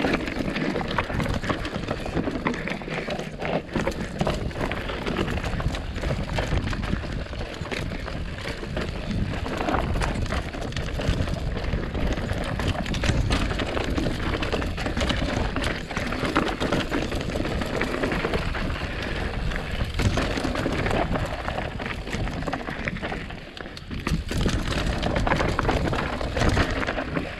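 Mountain bike descending a rough trail of loose volcanic rock cinders: tyres crunching and the bike rattling with constant small clicks and knocks, easing briefly about three quarters through.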